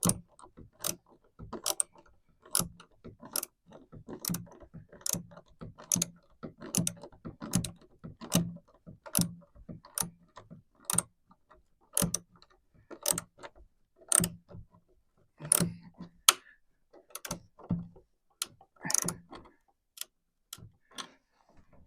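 Hand tools working iron door-latch hardware: a run of sharp metallic clicks, a little more than one a second and fairly even, spaced out near the end.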